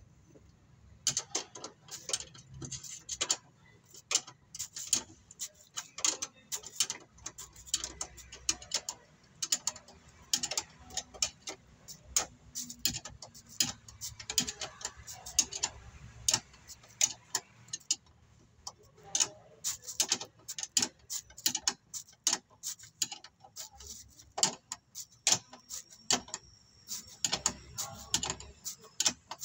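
Ratchet wrench clicking in quick, irregular runs as the bolts of a steel battery mounting bracket are tightened.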